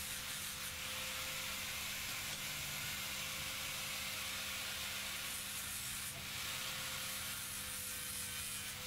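Angle grinder with a flap disc running at a steady speed, with a constant motor whine, grinding leftover weld off a steel die with a steady hiss of the disc on the metal.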